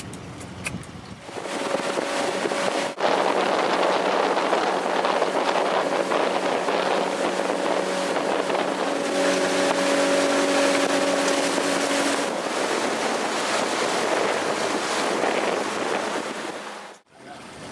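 Motorboat engine running steadily with the boat under way, with wind rushing over the microphone. It starts about a second in and cuts off suddenly near the end.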